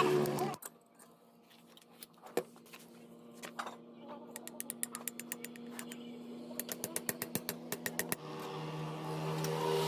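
Sharp clicks over a faint steady hum: a few scattered ones, then a quick even run of about eight a second near the end. A louder steady sound stops about half a second in and comes back after about eight seconds.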